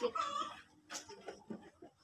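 A chicken clucking briefly near the start, followed by faint wet splashes and rubbing from clothes being scrubbed by hand in a basin of soapy water.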